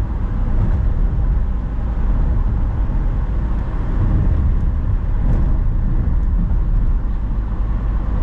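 Car driving along a highway: a steady low rumble of road and engine noise that holds even throughout.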